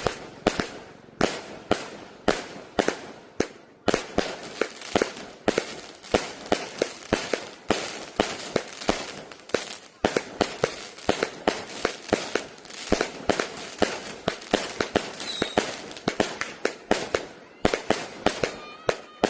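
A 168-shot, 0.8-inch consumer fireworks cake firing: a rapid, uneven string of sharp bangs, several a second, each with a brief ringing tail.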